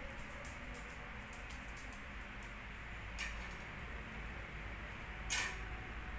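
Quiet steady background hum and hiss, with faint scattered ticks and two short soft clicks or rustles about three and five seconds in.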